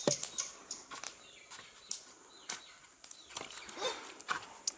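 Hand mixing spiced fish pieces in a stainless steel bowl: soft wet squelches and scattered light clicks of fish and fingers against the metal. A brief pitched call sounds near the end.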